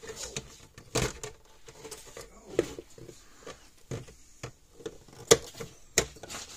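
Handling clicks and taps as wires are worked off the circuit board of an opened plastic-cased electric fence charger with pliers. Irregular sharp clicks, the loudest about five seconds in.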